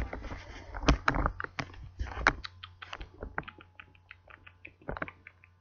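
Handling noise from a laptop being carried: a few dull knocks, then a run of irregular light clicks like keys and casing pressed under gripping fingers.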